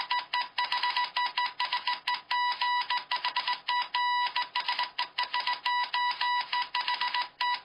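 Morse code beeping: a high, buzzy tone keyed on and off in quick runs of short and long beeps, with a click at each switch.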